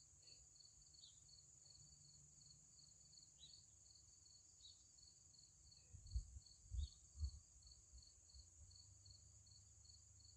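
Faint crickets chirping evenly, about three chirps a second, over a steady high insect trill. Three soft low thumps come about six to seven seconds in.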